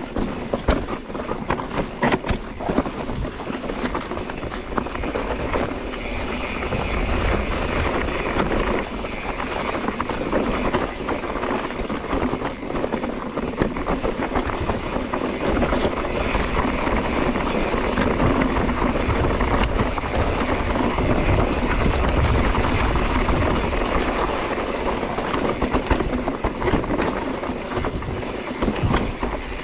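Mountain bike being ridden over rough ground: steady rolling and rattling noise with wind rushing over the microphone, and a few sharp knocks in the first seconds.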